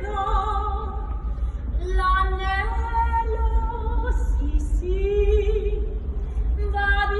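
A woman singing solo in an operatic style, holding long notes with vibrato, over a steady low hum.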